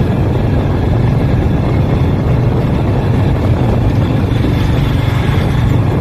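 Motor vehicle engine running steadily while driving along a road, with road noise.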